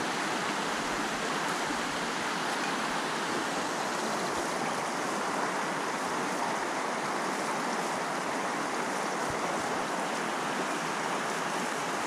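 The Erymanthos river flowing, a steady, even rush of water.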